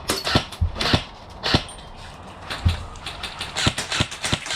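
Airsoft gunfire: sharp single cracks at irregular intervals, coming quicker near the end.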